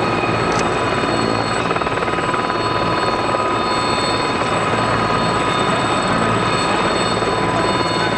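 Mil Mi-17 twin-turbine helicopter running on the ground with its main rotor turning: a steady high whine from the turbines over the rapid churning of the rotor.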